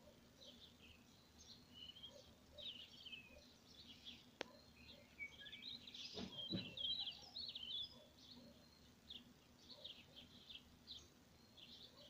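Small songbirds chirping and singing faintly with many short calls, and a louder run of quick chirps about six seconds in, together with a brief low thud. A single sharp tick sounds about four seconds in, and a faint steady low hum runs underneath.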